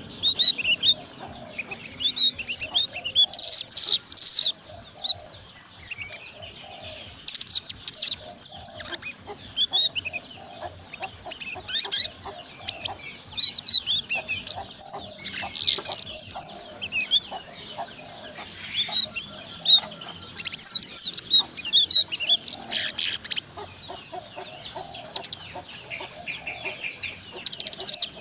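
Young male brown-throated sunbird (sogon) singing in a cage: bursts of rapid, high twittering chirps every few seconds, with quieter gaps between. It is a bird still learning its song.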